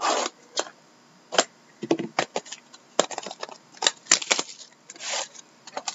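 Hands unpacking a sealed hockey card box: cardboard and plastic wrapping crackling and clicking in short, irregular bursts, with a longer rustle at the start and another near the end.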